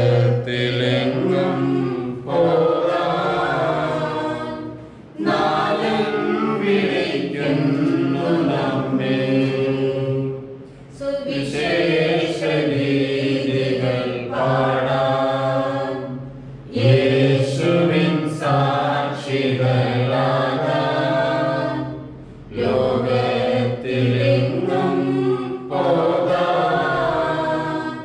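Liturgical chant sung by a group of voices, in phrases of a few seconds with short breaks between lines.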